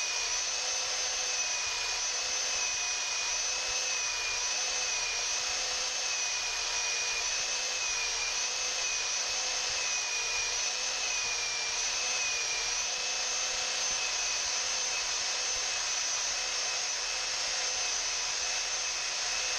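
Handheld belt sander running steadily, sanding pallet-wood coaster blanks smooth: a continuous motor whine over sanding noise, its pitch wavering slightly.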